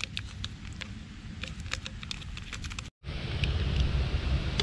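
Small sharp clicks and rustles of a paper instant-coffee stick being torn open and handled over a metal camp cup. After a cut about three seconds in, a steady low rumble with a few faint ticks takes over.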